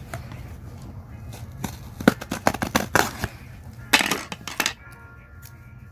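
Packaging being handled and opened: two bursts of crinkling and sharp clicks, the first about two seconds in and the second near four seconds, over a low steady hum.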